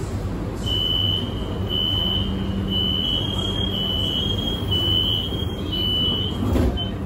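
Metro train door-closing warning: a high electronic beep repeating about once a second while the train and platform screen doors slide shut, ending with a knock as the doors close near the end. A steady low hum from the train runs underneath.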